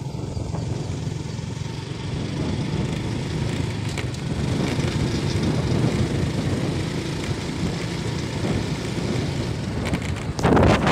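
Motorcycle engine running steadily while riding, with wind rushing over the microphone. The wind noise surges loudly near the end.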